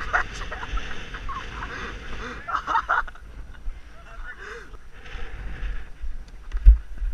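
Wind rumbling on a player-worn GoPro's microphone during a touch-football play, with brief distant shouted calls from players and one sharp thump near the end.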